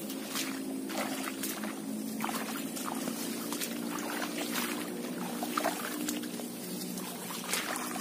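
Rubber boots wading through shallow muddy swamp water, with irregular sloshing and splashing steps, over a steady low drone.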